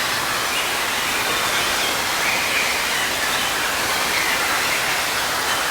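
Steady rushing din of an indoor water park: running and splashing water from the pools and water features, with faint distant voices mixed in.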